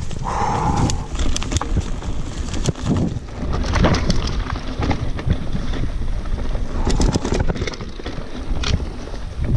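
Mountain bike rattling down a rough dirt singletrack: a steady low rumble from the tyres and from wind on the bike-mounted camera's microphone, with frequent clicks and clatters from the bike and from brushing vegetation, and a brief high tone about half a second in.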